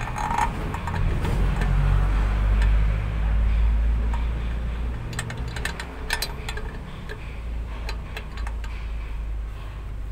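A vehicle engine's low rumble, louder about two to four seconds in, with a few light metal clicks around five to six seconds in.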